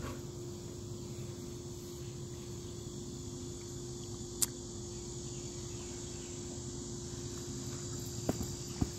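Steady chorus of cicadas droning, with one sharp click about four and a half seconds in and two small knocks near the end.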